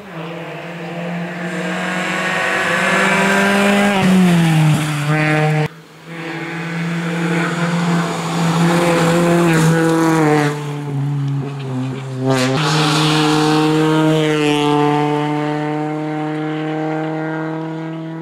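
Citroën DS3 R1 rally car's four-cylinder engine revving hard at full throttle, its pitch dropping and climbing again several times as it shifts and brakes through the bends. The sound breaks off and jumps twice where the passes are cut together.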